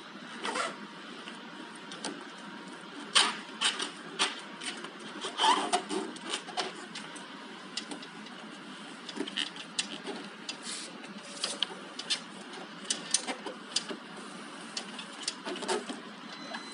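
Rubber refrigerator door gasket being pressed and worked into its groove along the door edge by gloved hands: irregular clicks, snaps and short rubbing noises over a steady hiss.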